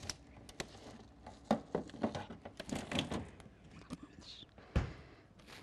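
Kitchen handling sounds: scattered clicks and knocks of things being picked up and set down on a counter, with a louder low thump about five seconds in.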